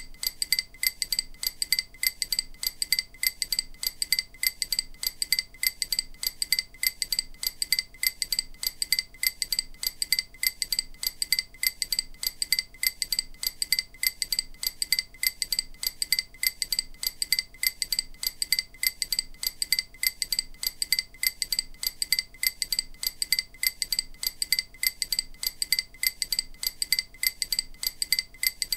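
EMDR bilateral-stimulation audio: a short, bright, chime-like click repeating several times a second at an even, unchanging rhythm. It is meant to alternate between the left and right ear to stimulate each side of the brain in turn.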